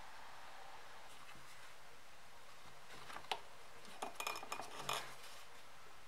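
Small handling clicks and light metallic clinks as a thick leather holster and steel stitching needles are worked by hand: one sharp click about three seconds in, then a quick cluster of clinks and rustles lasting about a second.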